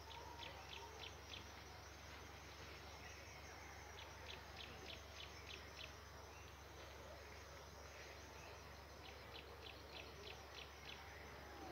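Near silence: faint outdoor ambience with a high chirp repeated about five times a second in three short runs, over a steady low hum.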